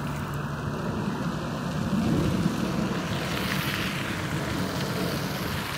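Distant jet noise from Dassault/Dornier Alpha Jet twin-turbofan trainers flying aerobatics: a steady rushing rumble whose hiss grows brighter about halfway through.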